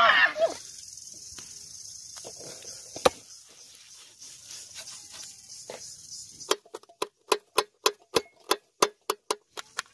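Knife chopping shallots on a steel platter: a regular run of sharp taps, about three a second, starting about two-thirds of the way through. Earlier, a single heavier knock from a cleaver cutting beef on a wooden chopping stump.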